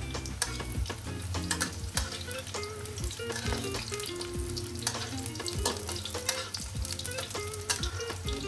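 Cubes of eggplant deep-frying in hot oil in a wok, sizzling with a dense crackle of small pops, while a metal spatula stirs and turns them.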